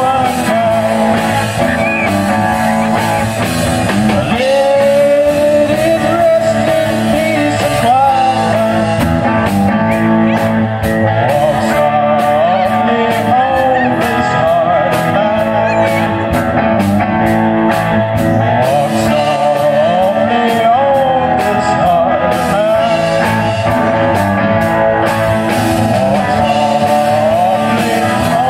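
Live rock band playing on amplified electric guitars and a drum kit, with a lead line that bends and wavers in pitch.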